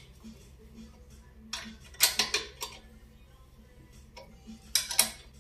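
Sharp metal clicks and clinks of a wrench on the nut of a bushing extractor pressing a new bushing into a motorcycle swingarm pivot: a quick run of several about two seconds in, and two more near the end.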